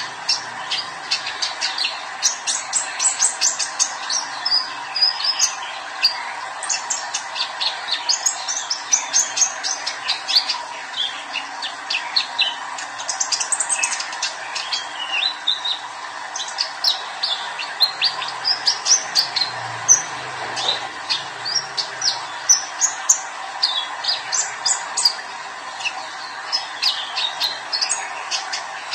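Young male olive-backed sunbird singing hard and continuously: a fast, unbroken run of high, sharp chirps and trilled phrases. A steady background hiss runs underneath.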